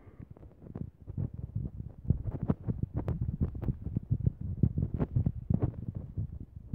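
Irregular low thumps and knocks, several a second, from footsteps and a handheld phone's microphone being jostled while walking on an asphalt road.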